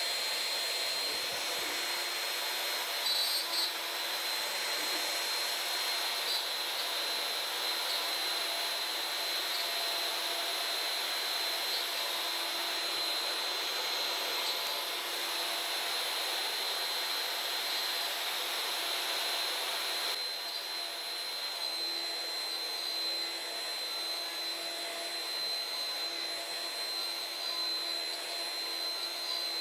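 Wood-router spindle on a CNC machine running at high speed while its end mill cuts into a wooden board: a steady high whine over the cutting noise, easing slightly about two-thirds of the way through.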